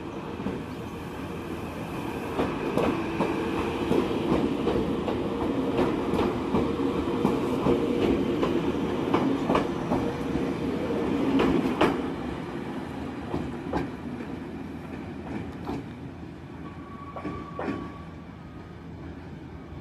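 Former Hibiya Line electric commuter train pulling out and passing close by, wheels clacking over the rail joints. It is loudest about two-thirds of the way through, then fades as it draws away, and a short high steady tone sounds near the end.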